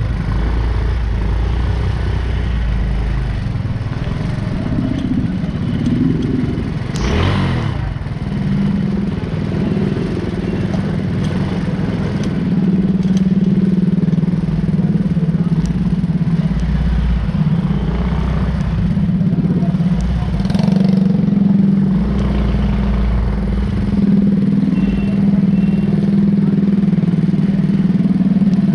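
Busy city street traffic with motorcycle engines running. A brief swell about seven seconds in, then a steady low engine hum from about eight seconds on.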